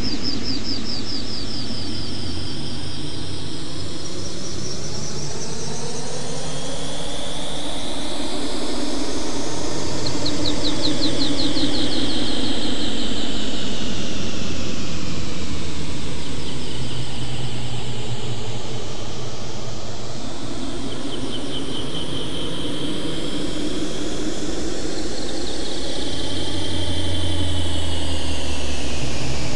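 Synthesized electronic sound made in SuperCollider: layered tones and noise that slowly glide up and down in pitch, swelling and easing in level over several seconds.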